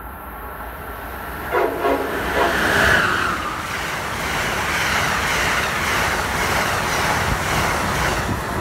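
Amtrak train with Amfleet coaches passing through a station at speed: the horn sounds about a second and a half in as the locomotive nears, then a steady rush of wheels on rail as the coaches go by.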